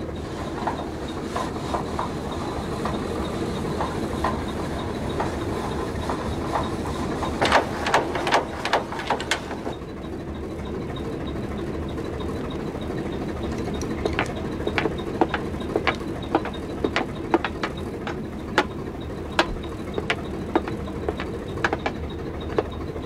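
A river barge's engine running steadily, with irregular sharp clicks and knocks over it, in a cluster about a third of the way in and then scattered through the second half.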